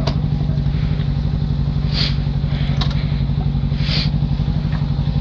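Yamaha XJ6's inline-four engine idling steadily through an open, de-baffled exhaust. Two short high squeaks come about two seconds apart.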